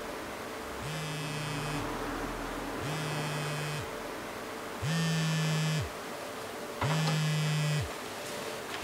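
Smartphone on vibrate buzzing for an incoming call, in pulses about a second long with about a second's pause between them. The first pulse starts about a second in, and the pulses grow louder about halfway through.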